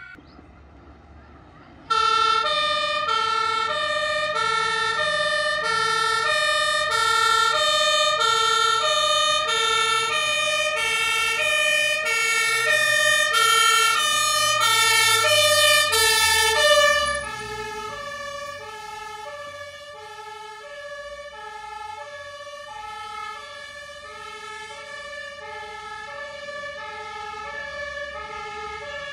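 German two-tone siren (Martinshorn) on a fire engine, an HLF 20/24, sounding its alternating two notes as the truck drives past. It cuts in suddenly about two seconds in and grows louder with the truck's engine and tyre rumble. About 17 seconds in it drops in loudness and slightly in pitch as the truck passes and moves away, still sounding.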